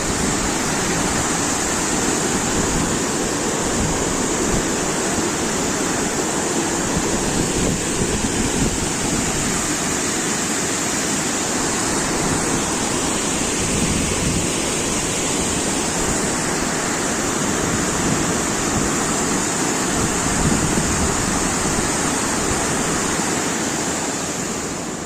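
Steady rush of fast-flowing water at a dam, with a constant high hiss on top and no breaks.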